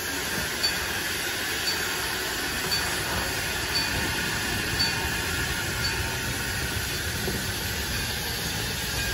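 HG 4/4 steam locomotive moving slowly past with a steady hiss of steam and a light tick about once a second.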